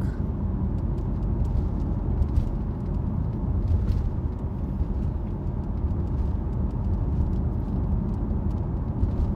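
Steady low rumble of background noise on a close phone microphone, with a few faint clicks.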